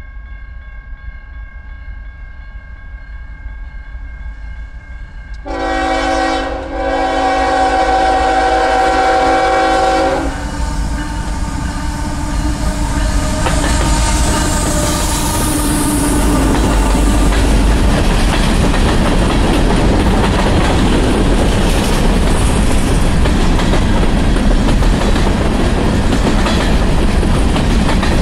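Grade-crossing warning bell ringing steadily, then the lead Norfolk Southern diesel locomotive sounds its horn for the crossing: a short blast and then one held for about three seconds. The locomotives and the mixed freight cars then roll through, with the rumble and the clickety-clack of wheels over rail joints growing louder.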